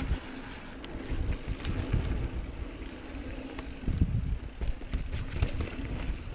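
Mountain bike riding down a dirt trail: wind rumbling on the microphone, with uneven bumps and scattered rattling clicks from the bike.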